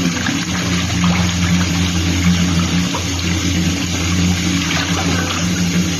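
Water running steadily from a tap into a bathtub, a constant rush of water with a low hum underneath.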